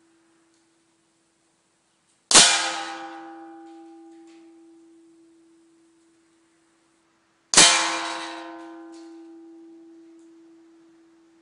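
Air gun pellets striking a metal target holder behind a paper target, twice about five seconds apart; each hit is a sharp clang that rings on and fades over about three seconds.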